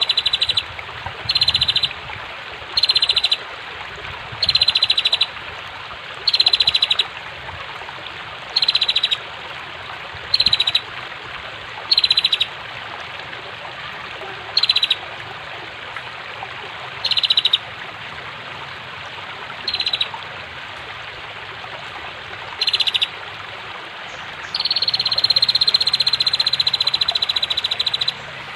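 Female prinia (prenjak) giving short, rapid, buzzy chattering trills every one to three seconds, with one longer trill of about four seconds near the end. Under the calls runs a steady rush of flowing water.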